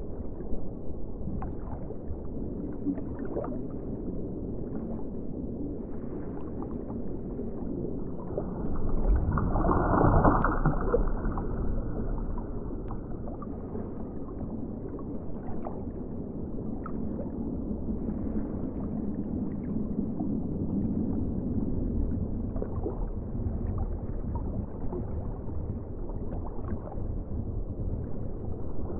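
Underwater ocean ambience: a steady, muffled rush of water with scattered faint clicks. About nine seconds in it swells into a louder surge, which eases off over the next few seconds.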